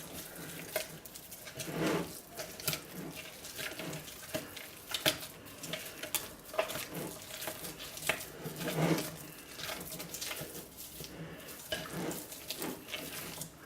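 Spatula stirring and scraping thick, partly hardened hot process soap in a bowl to work in green oxide colorant: irregular scrapes, soft squelches and knocks against the bowl.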